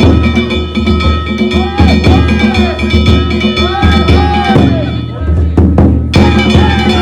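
Danjiri festival float music: a large taiko drum beating steadily under small hand-struck kane gongs ringing in a fast rhythm. The gongs drop out briefly about five seconds in and come back about a second later.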